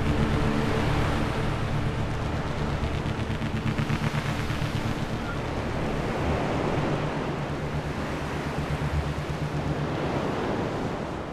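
Background music fading out in the first few seconds, under a steady, fluttering rush of wind and water noise on a canoe-mounted camera microphone as the canoe is paddled along.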